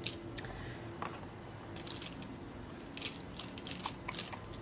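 Small hard makeup items clicking and clattering as they are rummaged through, in irregular little clusters of sharp clicks.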